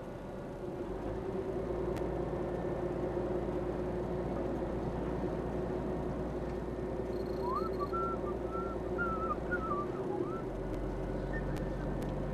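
Inside a lorry cab: the HGV's diesel engine and road noise droning steadily while driving, growing louder about a second in. A short warbling whistle comes a little past halfway.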